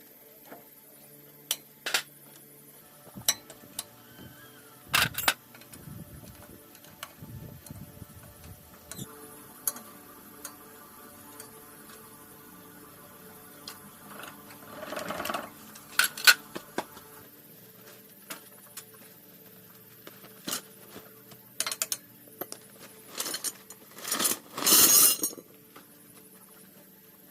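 Tools and metal parts clinking and clicking now and then as they are handled during a repair. Two longer scraping noises come about halfway through and near the end. Soft background music plays throughout.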